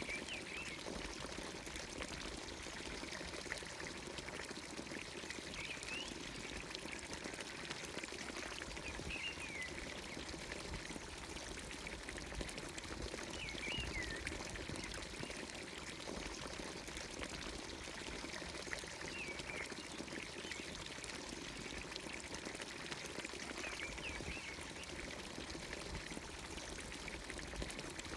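Water pouring steadily from a village fountain's spout into its stone trough. A bird gives a short chirping call about every four to five seconds.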